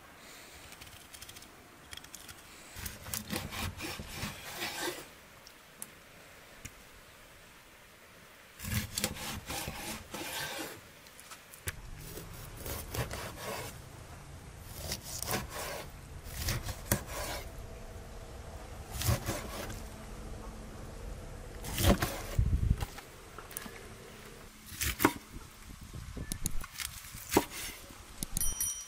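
A large kitchen knife cutting sturgeon on a wooden chopping board. Sawing and scraping strokes through the flesh mix with knocks of the blade on the wood. They come in short clusters with pauses between.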